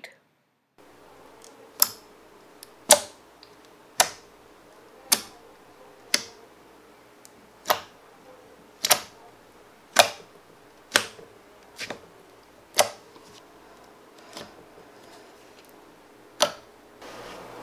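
Fingers poking a glossy orange clear slime mixed with gold leaf flakes, each press making a short sharp click or pop, about one a second, roughly a dozen in all.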